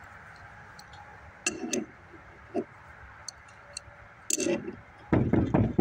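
Metal tools clinking and knocking against a steel bearing separator puller: a few scattered clinks, then a cluster of louder knocks near the end.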